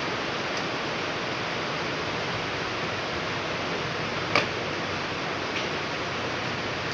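Heavy rain falling steadily. A sharp click comes about four seconds in, with a couple of fainter ticks.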